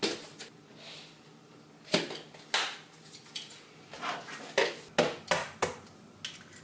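Dishes and cutlery being handled in a kitchen: about nine irregular clinks and knocks, a few louder ones around the middle.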